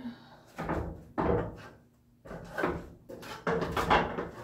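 Irregular knocks and clunks, about half a dozen, from people climbing on a stepladder and scaffold planks, the loudest near the end.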